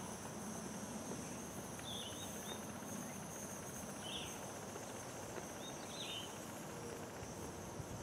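A gas torch's open yellow flame burning steadily with a soft, even rush as it heats seized metal. A few short high chirps sound about every two seconds over the faint steady background.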